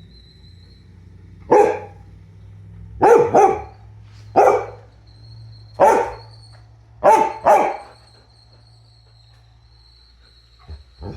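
Dog barking seven times in short, sharp barks, some in quick pairs, over a steady low hum and a faint high whine.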